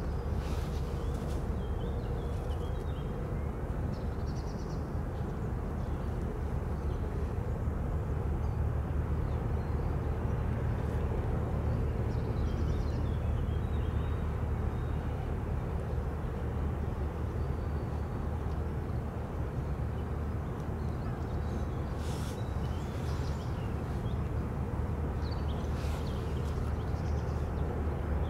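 Steady low rumble of a passing inland motor cargo ship, with a few short, high bird chirps now and then.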